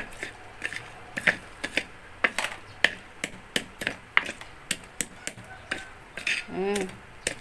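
Stone pestle knocking and grinding against an earthenware mortar as fresh chilies, shallots and garlic are crushed by hand. Sharp, irregular knocks come about three times a second.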